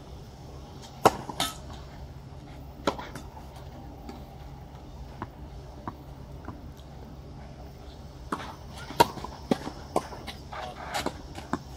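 Tennis ball struck with a racket: a sharp pop about a second in as the serve is hit, a second hit shortly after, and another rally of pops and ball bounces from about eight seconds on, loudest near nine seconds. Softer ticks between are the ball being bounced on the clay before the next serve.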